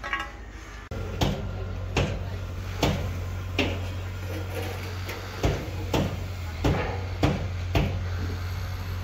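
Sharp metal knocks on steel rebar, about nine in all at roughly one a second, as stirrups are tapped into place on a column reinforcement cage, over a steady low hum.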